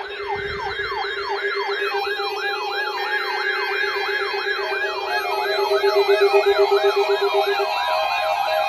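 Weather alert radios sounding their alarms for a test tornado warning. Several electronic alarms overlap: a fast warbling tone sweeps up and down about three to four times a second over a steady pulsing beep. More steady beeping tones join about five seconds in, and the pulsing beep stops near the end.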